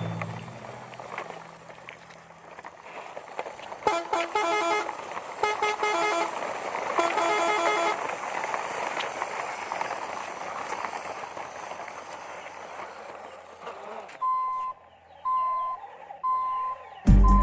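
A vehicle horn sounds in three blasts over steady engine and outdoor noise, followed near the end by a run of evenly spaced short high beeps, about one a second.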